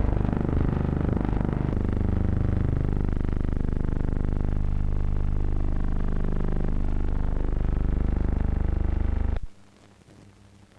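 Newsreel soundtrack music, loud and dense with sustained low notes, cutting off abruptly about nine and a half seconds in and leaving only faint film hiss.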